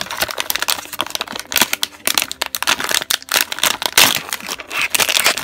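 Plastic blind-bag packaging crinkling and crackling as hands tear it open, a dense run of sharp rustles.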